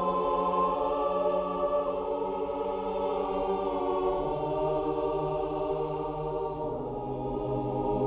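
Slow background music of long held chords that shift a few times, the bass note dropping lower near the end.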